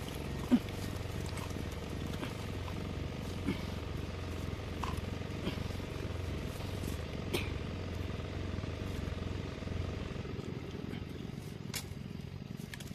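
A small engine running steadily in the background, its hum easing slightly about ten seconds in, with a few light clicks and knocks from a suction hose being fitted and strapped onto a water pump.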